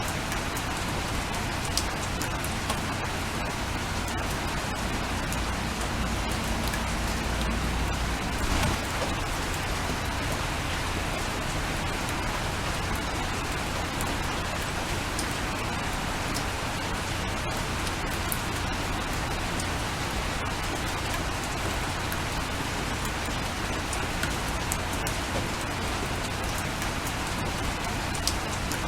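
Steady rain with individual drops ticking against a window pane. A low rumble swells briefly between about six and eight seconds in.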